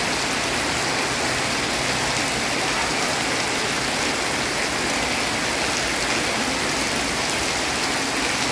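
Heavy rain falling steadily onto a wet paved floor, with a stream of rainwater running off a roof and splashing onto the ground.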